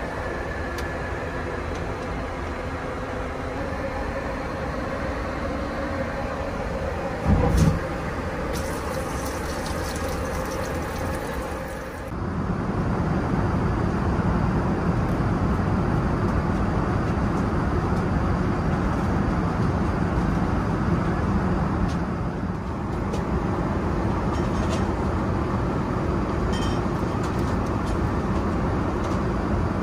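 Steady in-flight cabin noise of an Airbus A380, an even rush of air and engine noise. At first it carries a faint hum, with a brief loud thump about seven seconds in. From about twelve seconds it becomes louder and deeper.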